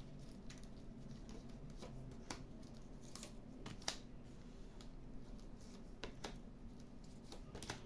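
Soft, scattered clicks and slaps of tarot cards being handled and laid down, about seven at uneven intervals.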